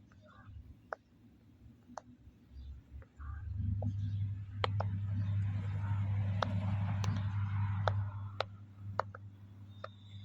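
Silicone pop-it fidget toy bubbles being pressed: sharp single pops about a second apart. Under them a low hum comes in a third of the way through and is loudest in the middle.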